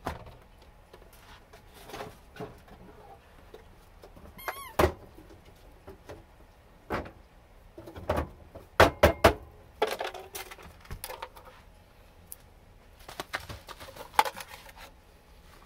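Scattered sharp knocks and clicks, loudest in a quick cluster about eight to nine seconds in and again near the end, with a brief high chirp about four and a half seconds in.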